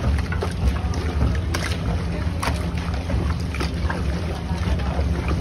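Hands mixing marinated chicken pieces in a large aluminium pot, with irregular wet squelches and slaps, over a steady low rumble.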